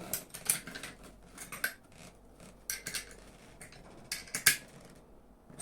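Angle grinder being handled with its motor not running: scattered small clicks and rattles of its casing and parts, in clusters near the start, about a second and a half in, and between three and four and a half seconds in, as it is moved and pressed to find the noise it is said to make.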